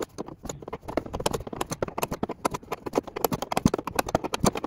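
Socket ratchet clicking rapidly in quick runs of sharp ticks as the harness lap-strap bolt is snugged down.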